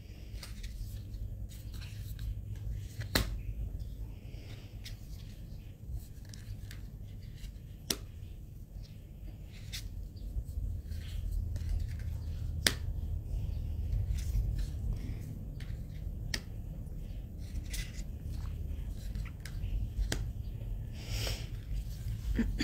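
Oracle cards being handled and laid down one at a time on a cloth-covered stack: soft sliding and rustling, with several sharp card snaps a few seconds apart. A low steady rumble runs beneath.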